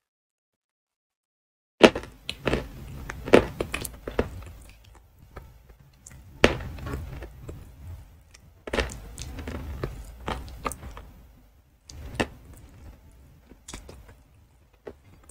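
Close-miked biting and crunchy chewing of hard lumps of edible chalk (ayilo). Starting about two seconds in, a sharp crunch every two to three seconds is followed by gritty grinding chews, fading out near the end.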